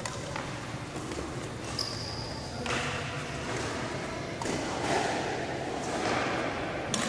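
Badminton rally: sharp racket strikes on the shuttlecock and footfalls on the court, with a short high shoe squeak about two seconds in. Voices murmur in the background.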